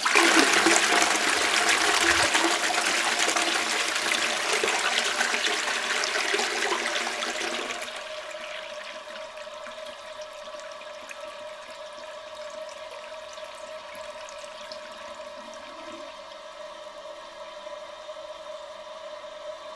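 Toilet flushing: a loud rush of water for about eight seconds, then a drop to a quieter, steady hiss with a faint steady tone as the tank refills.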